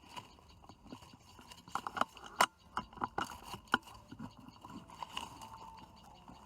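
A quick series of sharp clicks and knocks, the loudest about two and a half seconds in, over a faint steady drone of insects or frogs.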